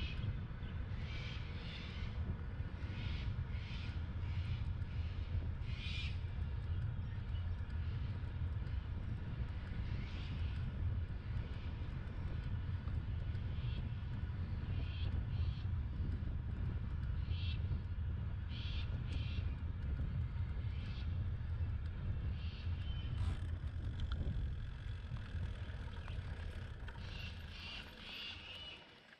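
Steady low rumble of wind and tyre noise on a bike-mounted camera riding on a bitumen road, with short bird calls coming and going over it. It fades out near the end.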